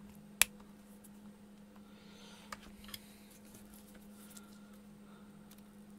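Flush cutters snipping a component lead on a perfboard: one sharp click about half a second in, then a few faint clicks and taps as the leads are pressed over. A low steady hum runs underneath.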